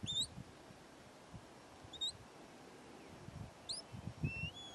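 Shepherd's whistle commands to a working sheepdog: four short, clean upward-sliding whistles, the last one longer and lower, starting flat and rising near the end. Low rumbles sit underneath.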